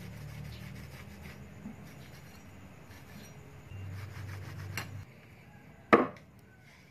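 Cloth rubbing and wiping over the steel blade of an axe made from a motorcycle brake disc, as it lies on a wooden block, then a single sharp knock about six seconds in, the loudest sound.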